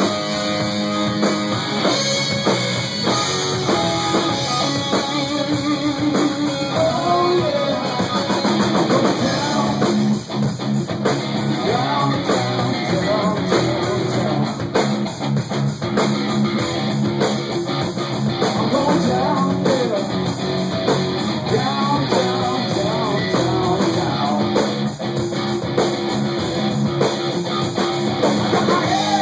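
Live rock band: electric guitar playing riffs and bent lead notes over a drum kit.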